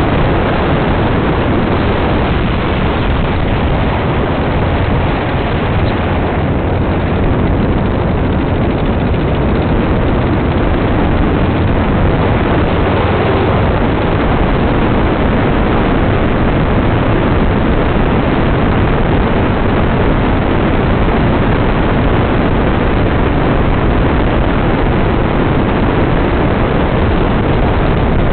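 Dune buggy driving steadily at speed over hard beach sand: the engine runs under a loud, even rushing noise that does not let up.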